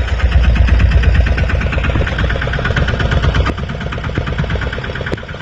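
A fishing boat's engine running with a fast, even beat, dropping noticeably in level about three and a half seconds in.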